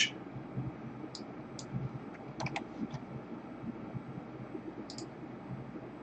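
Sparse, faint clicks of a computer keyboard and mouse over a low steady hiss, as an offset value is typed in and lines are drawn with the mouse.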